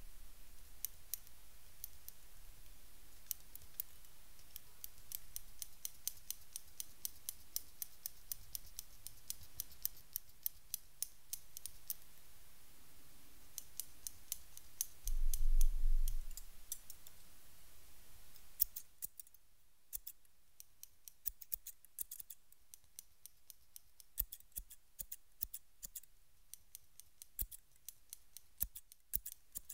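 Barber's hair-cutting scissors snipping rapidly close to the microphone: a fast, continuous run of short, crisp metallic snips. About halfway through there is a dull, low thump lasting a second or so, the loudest sound here.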